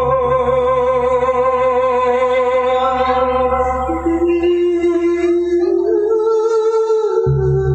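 A singer's voice drawing out long held notes with vibrato in a chanted verse, stepping to a new note about halfway through, over a steady low backing that cuts out briefly near the end.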